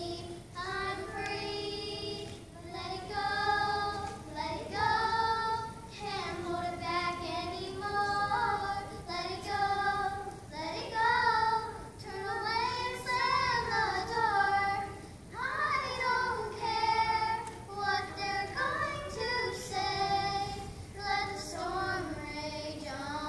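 Young children singing a song together on sustained, held notes.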